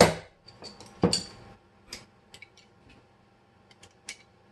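Steel parts of a 1911 pistol clicking and knocking as the mainspring housing is slid into the frame: a sharp knock at the start and another about a second in, then lighter clicks.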